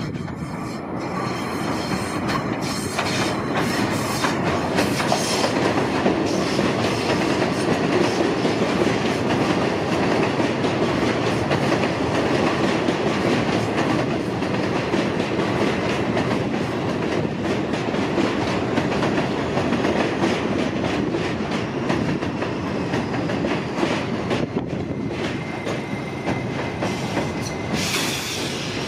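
R68A subway train running along the elevated line into the station and past, with a steady rumble and clatter of steel wheels on rail. A thin, steady high squeal joins near the end as it comes to the platform.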